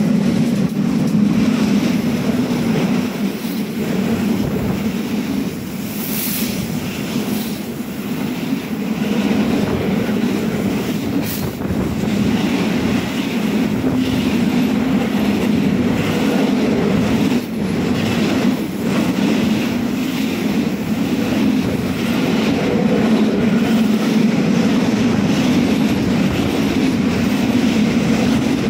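Freight train wagons carrying containers and lorry trailers rolling past close by: a steady, loud rumble of steel wheels on rail, with a few sharp clicks from the wheels.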